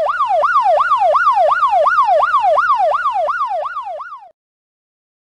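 Police car siren in a fast yelp, rising and falling about three times a second, which cuts off abruptly about four seconds in.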